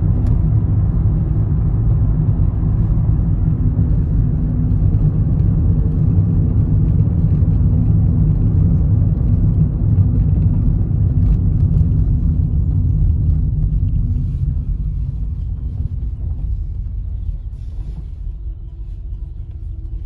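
Car in motion heard from inside the cabin: a steady low road-and-engine rumble that eases off a little near the end as the car slows.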